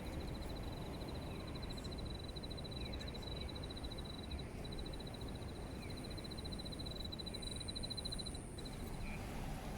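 A high, fast-pulsing animal trill runs steadily, with a short break about halfway through, and stops shortly before the end. Low, steady background noise lies under it.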